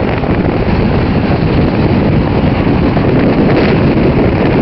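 Steady rushing wind and road noise from a car moving at highway speed, with wind buffeting the microphone.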